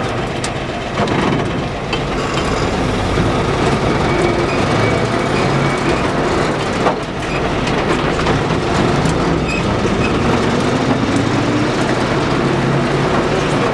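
Inside the cab of a GAZ-53A truck on the move: its V8 petrol engine running steadily under the noise of the cab and road, with the engine note rising around ten seconds in. A single sharp knock sounds about seven seconds in.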